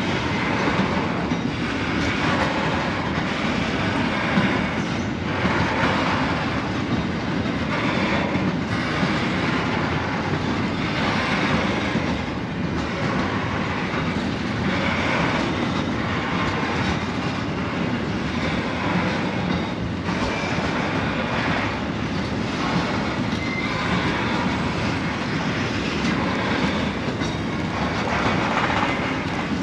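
Narrow-gauge phosphate hopper wagons of a long freight train rolling past at close range: a steady rumble of steel wheels on rail, swelling into a clatter about every second and a half as the wheelsets go by.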